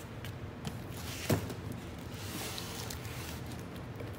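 Handling noises: a single knock a little over a second in, then soft rustling.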